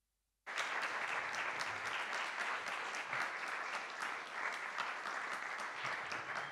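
Audience applauding, starting abruptly about half a second in and going on steadily.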